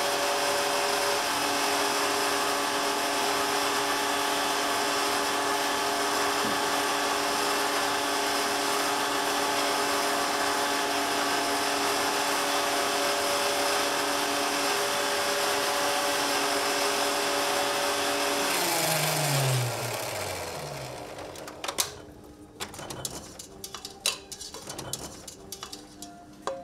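Electric stand mixer whipping egg whites, its motor running with a steady whine, then switched off about 19 seconds in and winding down in falling pitch. Sharp clicks and knocks follow.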